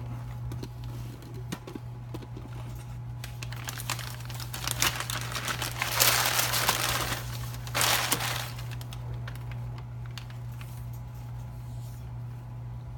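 Packaging wrap crinkling and rustling as a crankshaft is unwrapped from its box, in irregular handfuls that are loudest about halfway through, over a steady low hum.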